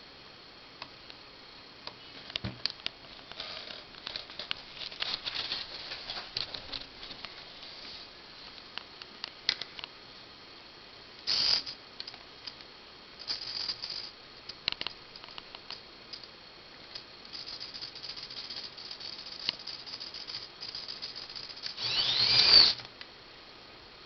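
Scattered light clicks and rattling, then short whirring spurts from a homemade robot's small drive motors. The loudest spurt, near the end, rises and falls in pitch.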